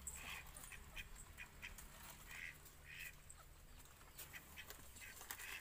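Several faint, short bird calls at irregular intervals, with scattered light clicks.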